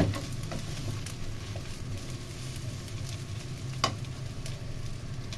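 Rice vermicelli and vegetables sizzling in a nonstick wok with a little chicken broth while a nylon spatula stirs and scrapes through them. One sharp click of the spatula against the pan comes a little under four seconds in.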